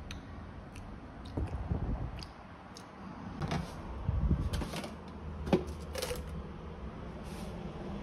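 A refrigerator being opened and food taken off its shelves: a series of knocks, thumps and sharp clicks from the door, shelves and containers being handled.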